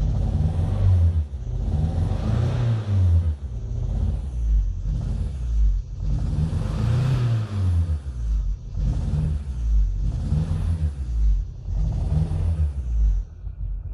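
Second-generation Toyota 3S-GTE turbocharged four-cylinder engine revved in about eight short throttle blips, settling back to idle near the end. It knocks and runs on only three cylinders, a misfire in one cylinder.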